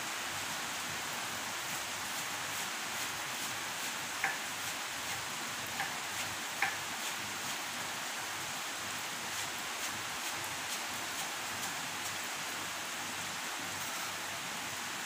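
Steady hiss of rain falling, with three light clicks between about four and seven seconds in.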